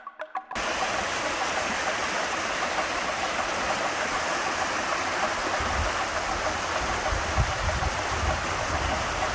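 Steady rush of the Mountain Fork River's rapids pouring over rock ledges, starting about half a second in. A low rumble joins the rush about halfway through.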